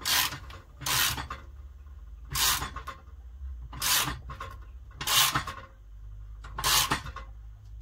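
Six short rubbing strokes at uneven gaps of about a second or so, made by hands working at the lamp fitting at the top of a homemade work-light post.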